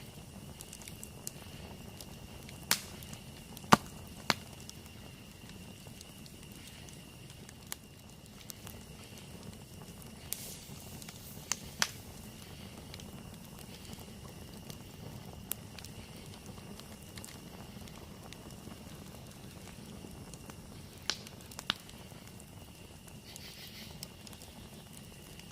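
Wood campfire burning, with a low steady rush broken by scattered sharp pops and crackles, the loudest a few seconds in and more around the middle and near the end. A steady high thin tone runs underneath.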